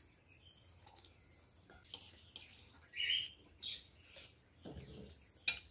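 A pet bird's faint, short chirps about halfway through, with a few light clicks around them.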